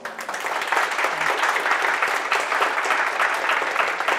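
Audience applauding: many people clapping, breaking out suddenly and keeping up steadily.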